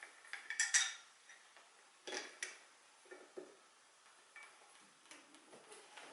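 Metallic clinks and taps of gaming-chair hardware and tools being handled during assembly, as the metal backrest bracket is bolted on. A sharp, ringing cluster of clinks just under a second in, then scattered quieter taps and knocks.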